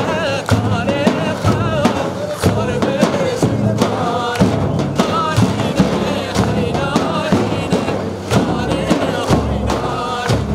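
Kurdish wedding music: a wavering melody over a steady drum beat of about two strokes a second.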